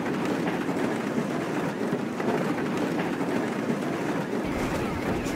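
Thousands of rubber super balls bouncing down a steep paved street, a dense continuous clatter of small hits like a passing train. Wind rumbles on the microphone near the end.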